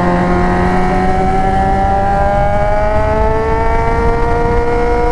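Yamaha XJ6's inline-four engine running through an Atalla aftermarket exhaust under way, its pitch rising smoothly as the bike gathers speed and then holding steady near the end.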